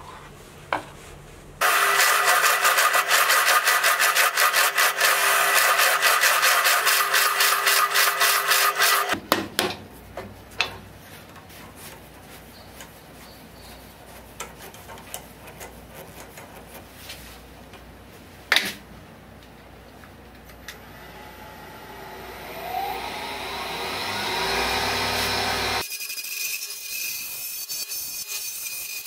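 A drill press runs loudly into a wooden blank for about seven seconds and then stops. After a quieter stretch of handling knocks, a wood lathe spins up with a rising pitch. Near the end a gouge cuts the spinning snakewood blank.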